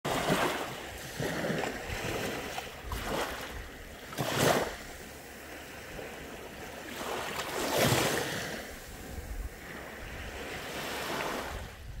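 Small sea waves breaking and washing up a sandy beach, swelling and fading over and over, the loudest surges about four and a half and eight seconds in.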